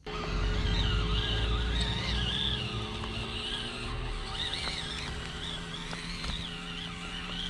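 A 1:18 scale FMS Atlas 6x6 RC truck's small electric motor and gears whining, the pitch rising and falling with the throttle as it crawls, over a low rumble that eases after about two seconds.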